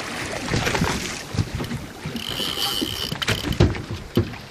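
Hooked Australian salmon splashing at the surface beside a boat, with wind on the microphone and water noise. A short high steady tone a little after two seconds in, and a few knocks near the end.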